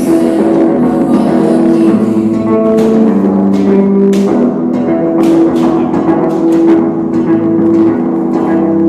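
Live ambient music: held drone tones that shift pitch now and then, with a run of sharp percussive clicks and strikes through the middle.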